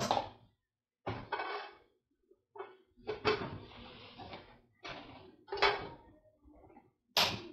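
Clattering and knocks of a stainless steel pot being handled and set down on a portable single-burner cooktop, in about five short bursts with brief quiet gaps between them.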